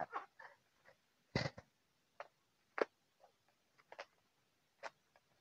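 Hands handling the product box: a few scattered light clicks and taps, the clearest about a second and a half in.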